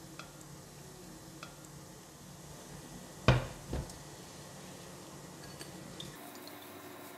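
Stainless steel wok set down on a glass-top stove with one loud clank about three seconds in, followed by a smaller knock.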